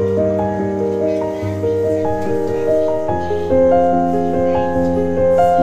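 Background music: a slow tune of held keyboard notes and chords that change at an even pace.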